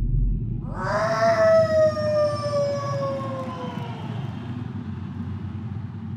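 A siren wails once, rising quickly about a second in and then slowly falling away over the next few seconds, over a low steady rumble.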